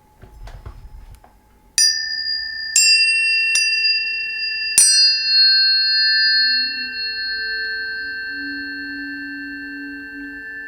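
Tuning forks struck four times in quick succession, each strike a sharp click followed by a long, pure ringing tone. The high tones overlap into a steady chord that slowly fades.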